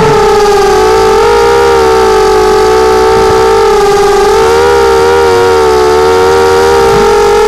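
Hexacopter's six Tiger MN1806-2300kV brushless motors and propellers whining in flight, several close pitches wavering up and down together as the throttle shifts.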